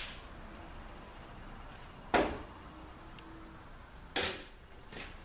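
Two sharp knocks about two seconds apart, from metal tools and parts being handled at the workbench.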